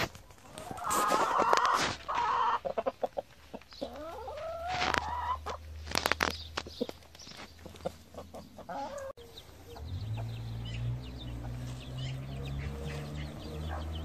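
Chickens clucking, loudest in the first few seconds, with scattered clicks. After a cut about nine seconds in, a steady low hum takes over.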